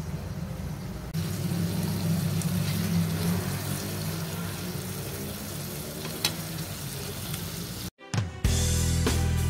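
Eggplant and egg sizzling in a wok under background music, with a single sharp click of the metal spatula against the pan about six seconds in. Near the end the sound drops out briefly and a louder outro tune with a beat starts.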